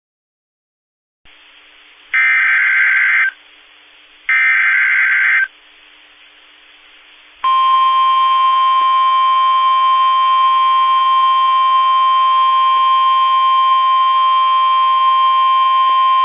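Emergency Alert System SAME header data: two harsh, raspy digital bursts of about a second each. About three seconds later comes the long, steady NOAA Weather Radio 1050 Hz warning alarm tone, held for about nine seconds. Together they announce the start of a new weather warning broadcast.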